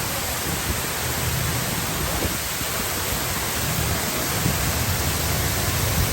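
Steady rushing roar of water pouring down the Gerald D. Hines Water Wall, a large horseshoe-shaped fountain, with a fluctuating low rumble of wind on the microphone.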